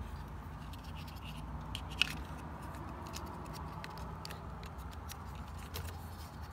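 Small plastic clicks and scrapes from handling a pickup's door lock switch and its plug-in connector, with one sharper click about two seconds in, over a steady low hum.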